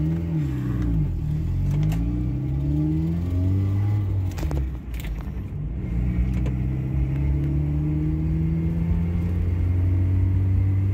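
Mazda Miata's four-cylinder engine running, its pitch rising and falling over the first few seconds, then holding steady.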